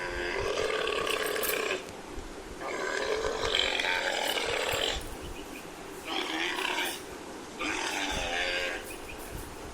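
Camel calling: four rough, pitched calls in a row, each lasting about one to two and a half seconds, with short pauses between them.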